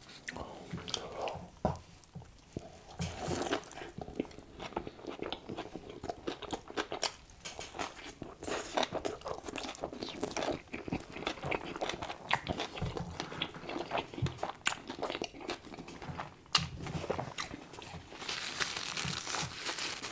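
Close-miked biting and chewing of a double cheeseburger, a dense run of short, sharp mouth clicks and soft crunches. Near the end, a paper napkin rustles against the mouth.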